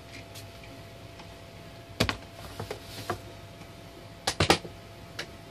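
Handling noise: sharp clicks and light knocks of hard plastic parts being moved and set down, one about two seconds in, a few small ticks after it, and a quick cluster of clicks later on.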